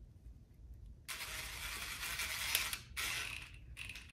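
Cordless drill running in bursts as its bit bores into a brittle plastic coolant hose connector. There is one run of about two seconds starting a second in, then two short ones near the end.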